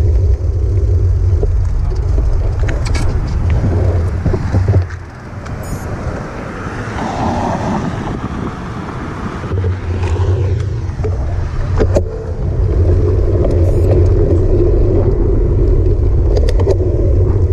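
Wind rumbling on a bike-mounted action camera's microphone while riding a road bike. About five seconds in it falls away as the bike slows to a stop at an intersection, leaving quieter street and car noise, then comes back about twelve seconds in, right after a sharp click, as riding resumes.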